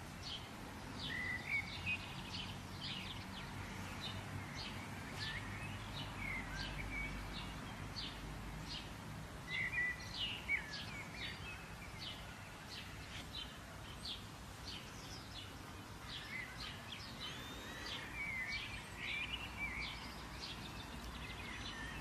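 Birds chirping and singing: many short, sharp notes and quick rising and falling whistles, over a low steady background rumble.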